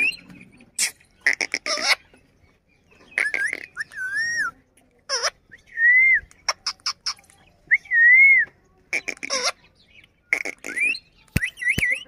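Indian ringneck parakeet whistling and chattering: a few clear, wavering whistles, loudest near the middle, mixed with short harsh calls and sharp clicks.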